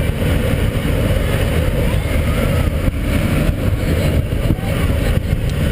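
Wind from a wind-machine exhibit blowing across the microphone: a steady, loud low rumble.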